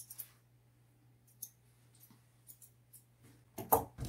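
Grooming scissors trimming a Pomeranian's tail fur: a few light, scattered snips. A louder noise comes near the end.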